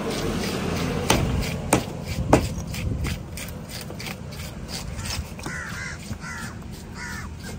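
A few sharp knocks in the first half, knife chops on a wooden cutting block, then a crow cawing four times in quick succession in the second half.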